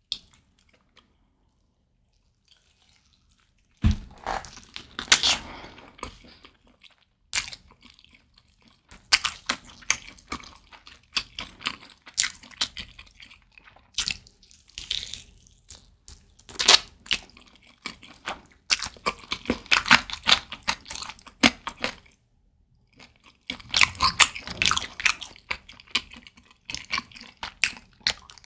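Close-miked biting and chewing of a sauced roasted chicken drumstick, with repeated wet, sticky mouth sounds as meat and skin are torn off and chewed. It starts after about four seconds of quiet and pauses briefly near the end.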